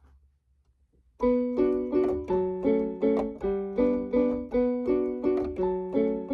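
Near silence, then about a second in, piano-style keyboard music begins: a plain melody of evenly spaced notes, two to three a second.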